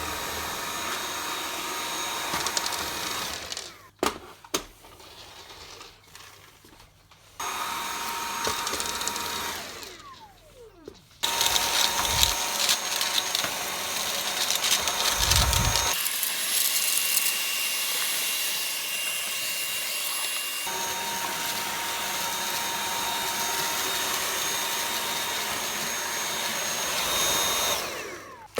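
Dyson V8 cordless stick vacuum running on a hard floor with a steady high whine. The motor cuts out and winds down twice with a falling whine, then starts up again, and dips once more near the end.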